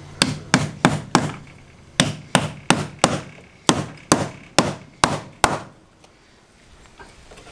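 Claw hammer driving a toothed steel nail plate into a wooden stud over an electrical cable, about a dozen sharp strikes in three quick runs that stop about five and a half seconds in.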